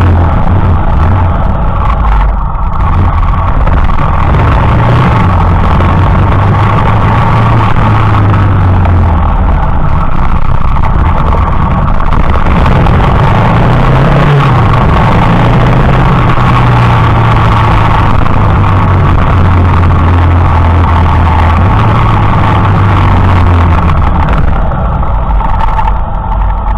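Motorcycle engine running under way, heard close up from a camera on the bike's leg protector, its pitch rising and falling with throttle and gear changes, over heavy steady road and wind noise. Very loud throughout, easing off a little near the end.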